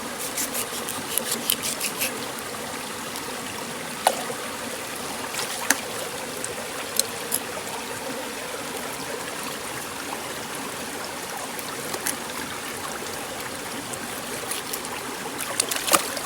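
Water running and trickling steadily, with scattered sharp clicks and taps.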